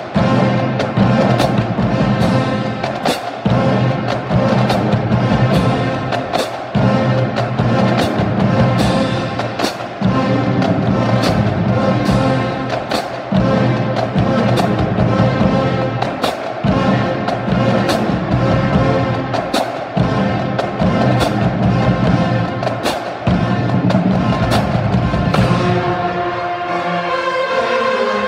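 Marching drumline playing a cadence: bass drums and snare drums beating under crash cymbals clashed in a steady pulse, the cymbals ringing. Near the end the drums thin out and held pitched notes are left.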